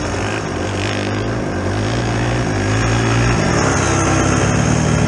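Kawasaki KX125 two-stroke dirt bike engine running at low, fairly steady revs, its note shifting slightly about three seconds in.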